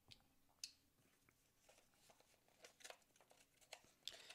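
Faint handling of a small cardboard box: a few light ticks and rustles of card as its cut-open end flap is worked, the sharpest about half a second in.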